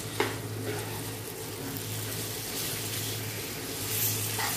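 Minced meat and fried onions sizzling in hot oil in a steel kadhai while being stirred with a metal slotted spoon. The spoon clinks on the pan once just after the start.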